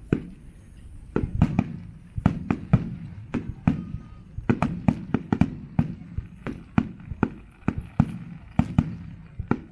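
Fireworks show: aerial shells bursting in quick, irregular succession, with sharp booms about two or three a second.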